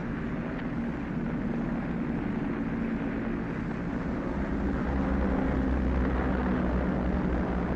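Twin-engined Vickers Wellington bomber's engines droning steadily in cruising flight, growing a little louder about five seconds in.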